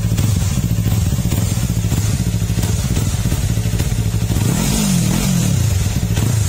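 Yamaha MT-03's parallel-twin engine idling through a Yoshimura R11 slip-on muffler, with one quick rev about four and a half seconds in that rises and falls back to idle.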